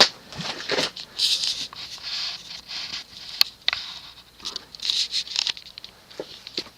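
Emerson Designer 36-inch plastic ceiling fan switched off with a sharp click, then coasting down: soft, uneven rushes of air noise about once a second with a few light ticks, fading toward the end.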